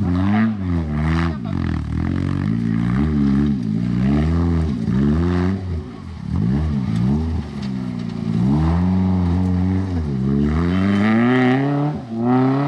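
Rally car engine revving hard, its pitch climbing and dropping again and again as the driver goes up through the gears and lifts off.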